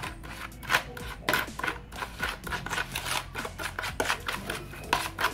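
Metal spoon scraping and clicking against a plastic bowl while stirring a marinade, a quick, irregular run of short scrapes, several a second.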